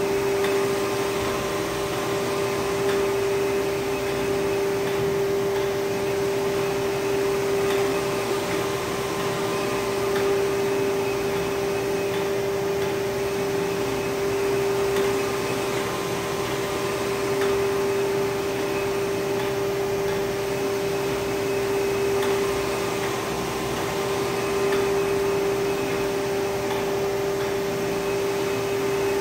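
Océ Arizona UV flatbed printer running as it prints, a steady machine whir with a strong constant hum tone. The print carriage sweeps back and forth over the bed, and the sound swells gently about every two to three seconds.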